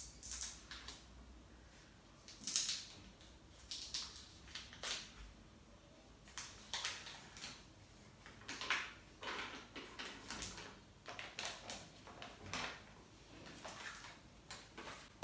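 A margarine bar's paper wrapper being peeled and crinkled by hand, in irregular crackling rustles throughout.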